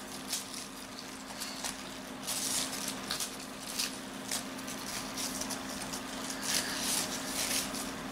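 Plastic packaging rustling and crinkling in bursts as a phone charger is unwrapped by hand, over a faint steady hum.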